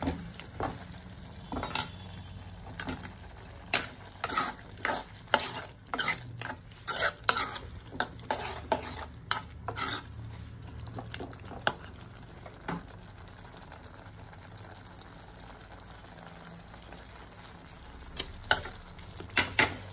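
Steel spoon stirring sweet potato masala in a kadai, clacking and scraping against the pan, over a faint steady simmer as the gravy cooks down on a low flame. The stirring pauses for several seconds past the middle and picks up again near the end.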